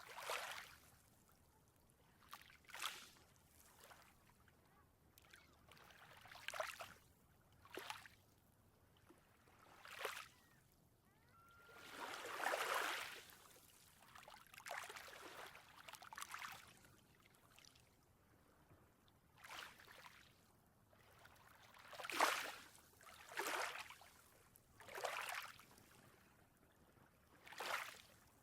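Ocean waves washing in gently: faint, irregular swishes every one to three seconds, some briefer and some drawn out.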